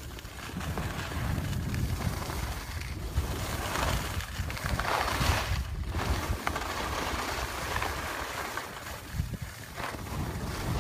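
Wind buffeting the microphone while skiing downhill, a steady low rumble, with the hiss and scrape of skis sliding on packed snow that swells about four to five seconds in.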